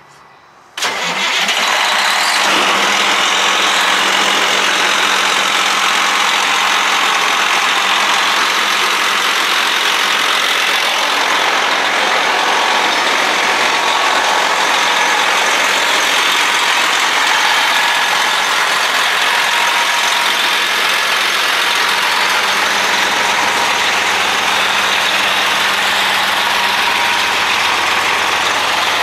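A 2006 Sterling day cab truck tractor's diesel engine starts about a second in, then settles into a steady idle.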